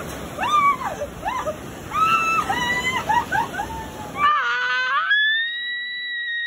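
Excited high-pitched screaming and shrieking over breaking surf. About four seconds in the surf noise drops away and a single long high scream is held for about two seconds.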